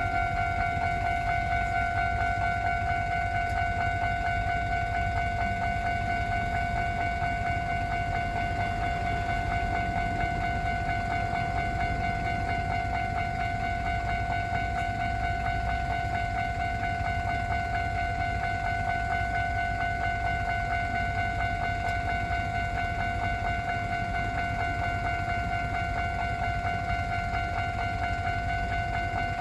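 Japanese railway level crossing warning bell ringing on one steady pitch, with a steady low rumble underneath.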